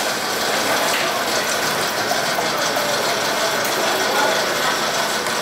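A machine running steadily, with a continuous mechanical rattle and whirr.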